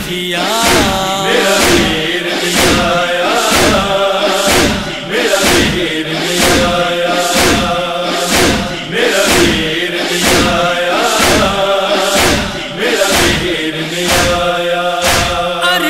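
Noha lament: a chorus of voices chanting a wordless refrain over a steady beat about twice a second.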